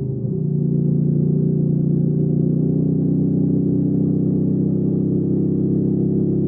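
Hyosung GV300S Aquila 300 V-twin motorcycle engine running under way. There is a brief drop in level at the start, then a steady pull with the pitch creeping slowly upward.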